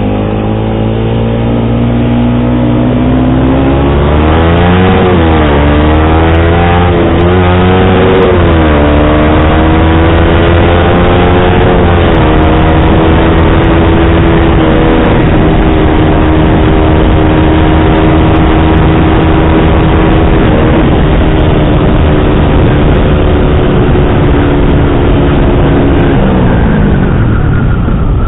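Yamaha R15 V3's 155 cc single-cylinder engine through an SC Project aftermarket exhaust with a dB killer, revving up through several quick gear changes over the first nine seconds, then holding a steady pitch at cruise before the revs fall away near the end.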